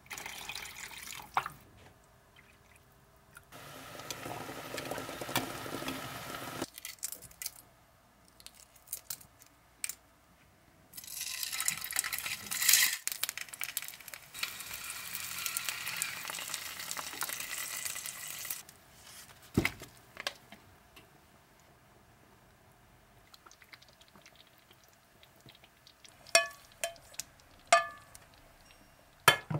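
A spatula stirring thick curry in a metal saucepan, then eggs sizzling in a frying pan for several seconds. Near the end come a few sharp clinks of a metal spoon against the pans as the eggs are dropped into the curry.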